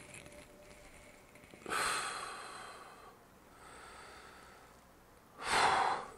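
A man breathing heavily through his nose as he fights back tears: a loud nasal breath about two seconds in that trails off, a softer breath around four seconds, and a short sharp sniff near the end.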